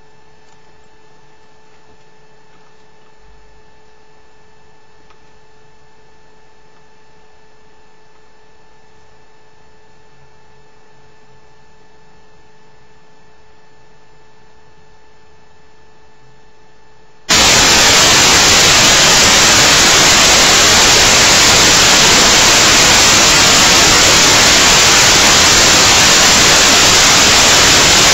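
Recording noise: a faint hiss with a steady high electronic whine, which about 17 seconds in switches abruptly to loud, full-range static hiss.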